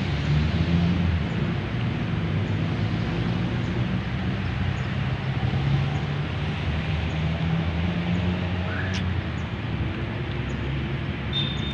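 Steady hum and hiss of nearby road traffic, with engine rumble rising and falling. There is a short rising chirp about nine seconds in and a brief high tone near the end.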